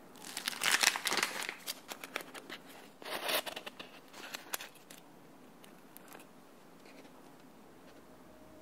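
Crinkling and crackling of a paper cupcake liner and a piping bag as frosted cupcakes are handled: two loud bursts, about half a second in and at three seconds, then scattered small crackles that die away by about six seconds.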